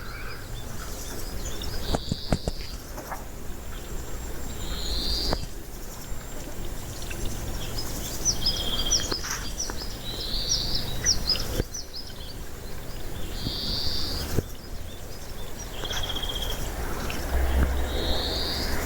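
Siberian chipmunk calling: a single short, high chirp repeated every two to three seconds. Between the calls come a flurry of quick, higher chirps and, twice, a brief rapid trill.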